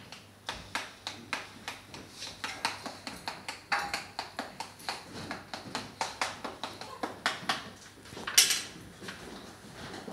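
A spoon clinking against a glass or jug as a protein-powder milk drink is stirred by hand, in quick irregular taps of about three a second. About eight seconds in there is one louder, longer rush of noise.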